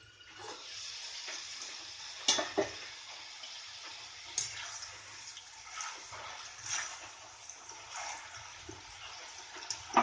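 Soaked green peas frying in hot oil in a kadhai: a steady sizzle that swells about half a second in as the lid comes off, with sharp pops and knocks scattered through it as the water still in the peas bursts in the oil and a spatula stirs them.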